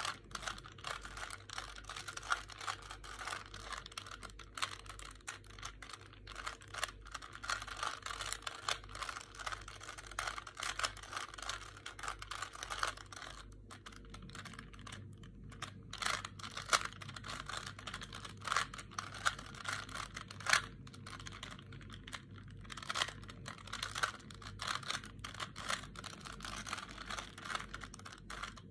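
Plastic 3x3 Rubik's Cube being turned rapidly by hand: a fast, continuous clatter of clicks as the layers snap round, with two short pauses, about halfway through and again about three-quarters through.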